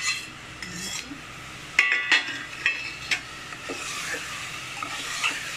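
Steel ladle stirring fried potato pieces through masala in an aluminium pressure cooker, scraping the pot and striking it with a few sharp clinks about two to three seconds in, over the hiss of the masala frying in oil.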